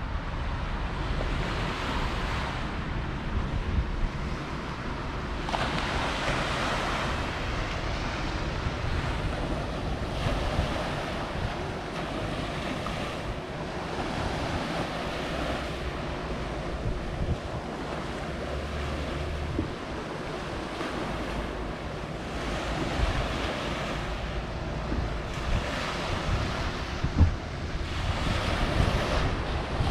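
Small sea waves washing onto a pebble beach, the surf swelling and fading every few seconds, with wind rumbling on the microphone.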